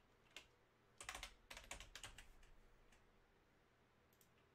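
Faint typing on a computer keyboard: a single keystroke, then a quick run of keystrokes for about a second, and two more taps near the end.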